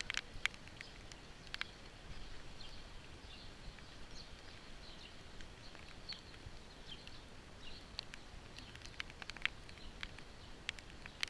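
Rain falling steadily, with many scattered drips and taps landing at irregular moments.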